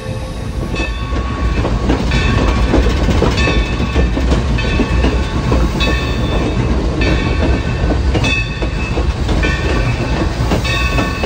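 Steam locomotive No. 3025 rolling along the track, heard close from aboard the engine: a steady low rumble and wheel clatter, with a ringing metallic strike about once every second or so.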